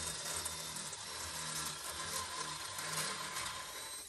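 Power drill with a step bit running steadily under load, cutting a plug-weld hole through steel up to 5/8 inch.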